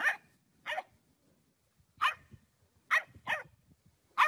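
Bulldog puppy barking: about six short, high yaps, spaced unevenly.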